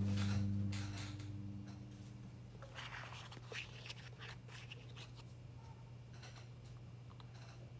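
Small plastic toy blocks of a Super Mario stacking toy handled and set on top of one another: scattered light clicks and taps. A guitar music tail fades out in the first two seconds.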